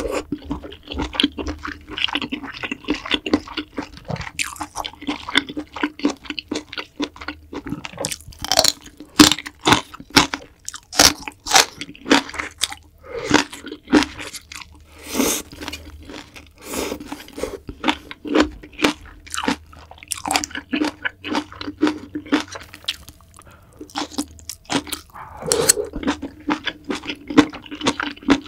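A person chewing food close to the microphone: a long run of irregular, crisp crunching bites and chews, some sharper and louder than others.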